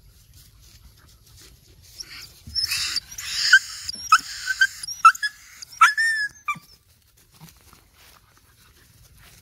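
Two dogs play-fighting, giving harsh, raspy snarls from about two seconds in, followed by a few short, high yelps that drop sharply in pitch.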